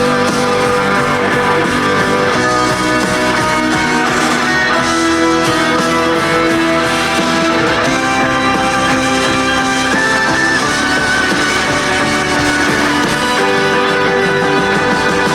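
Live pop-rock band playing an instrumental passage led by guitar, with no singing.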